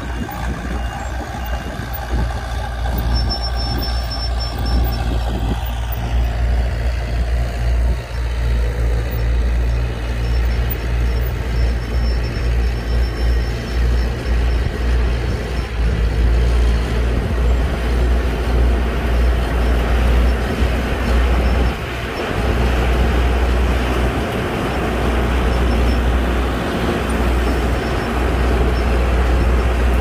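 Diesel engine of a small Komatsu crawler bulldozer running under load as it pushes a pile of sand, a steady low rumble that dips briefly a couple of times.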